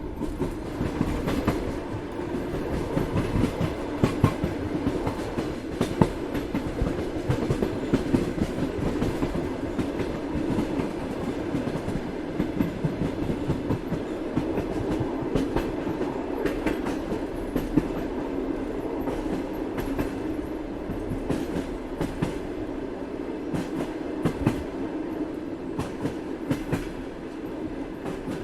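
A train in motion: a steady rolling rumble with frequent sharp clicks and knocks from the wheels on the track.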